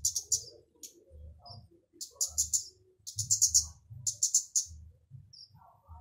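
Flowerpecker (kemade, burung cabai) calling: short bursts of rapid, sharp high ticks, a burst about every second.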